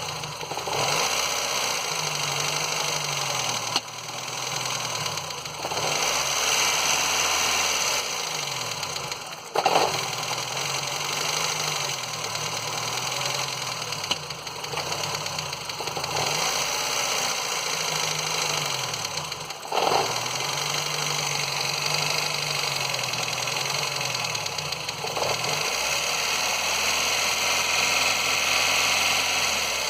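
Ford Fiesta Endura engine running with an unexplained noise, its speed rising and falling in repeated swells. Two sharp knocks stand out, about a third of the way in and again about two-thirds through.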